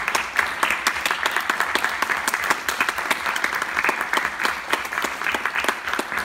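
Audience applauding: dense, steady hand-clapping.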